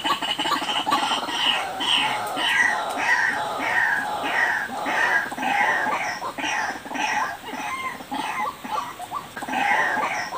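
White-breasted waterhen (ruak-ruak) calling, a steady run of short notes at about two a second, each dropping in pitch. This is the call used as a lure for the species.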